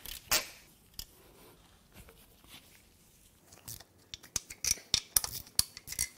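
Hand tools clinking against the aluminium engine block, then from about four seconds in a quick run of hand-ratchet clicks as the oil pan bolts are worked loose.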